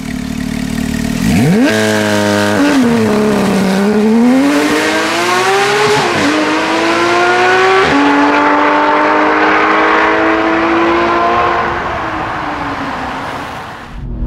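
Porsche 991 GT3's flat-six engine with a newly fitted Sharkwerks exhaust, revving hard as the car accelerates away. The pitch shoots up, dips, then climbs again through two quick upshifts before the sound fades into the distance near the end.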